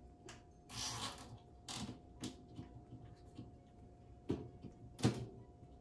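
Handling sounds as a T5 grow light is hung with zip ties inside a steel-and-glass cabinet: a few brief scrapes and rustles, then two sharp knocks about a second apart near the end.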